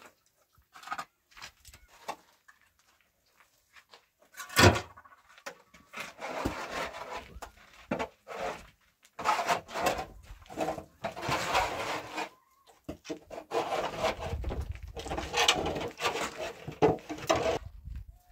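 Irregular scraping and rubbing of hand work, with one sharp knock about four and a half seconds in.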